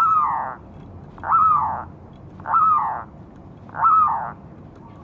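Zebra dove (perkutut) giving four short, arching cooing calls about a second and a quarter apart. This is the perkutut's calling (panggilan) note, the call used as a lure for wild perkutut.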